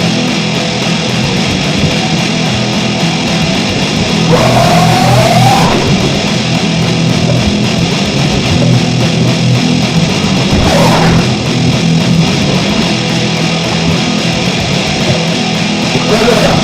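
Heavy, dense rock music on distorted electric guitar and bass, with a rising pitch slide about four seconds in.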